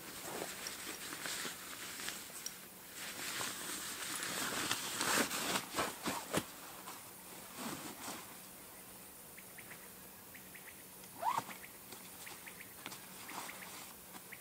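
Fishing gear being handled and packed: rustling of a padded fabric bag or mat with clicks, scrapes and knocks, busiest a few seconds in. A short rising squeak about eleven seconds in.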